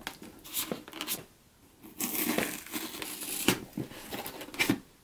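Scissor points being pushed and worked into foam to poke holes, the foam crinkling and tearing in irregular scratchy bursts, with a short pause about a second in.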